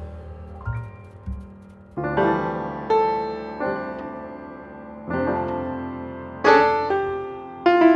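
Background piano music, with chords struck every second or so.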